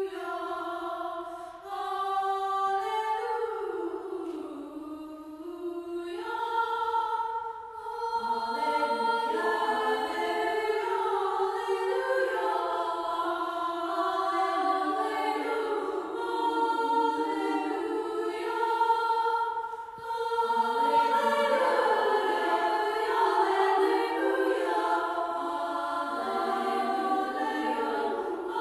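A choir of high voices sings a slow song in several-part harmony, with long held notes.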